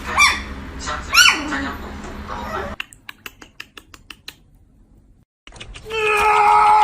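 An animal's short calls, each rising and then falling in pitch, a few times in the first second or so. Then a quick run of light clicks, a brief pause, and a steady sustained tone starting near the end.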